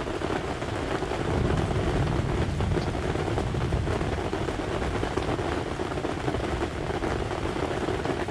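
Steady rush of heavy rain and wind, with a low rumble of wind on the microphone.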